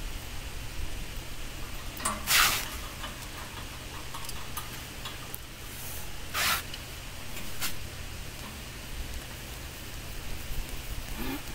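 Hand-tool work on the steel frame of a concrete block-moulding machine: a few light metal clicks and two short scraping rasps, about two and six seconds in, over a steady low rumble.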